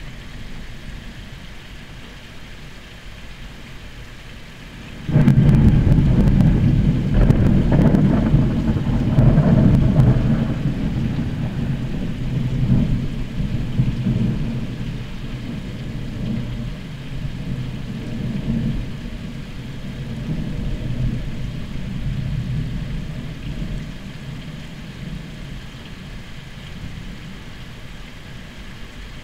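Thunder from a lightning bolt: a sudden crack about five seconds in, loud for about five seconds, then a rumble that rolls on and slowly fades over the next fifteen seconds or so.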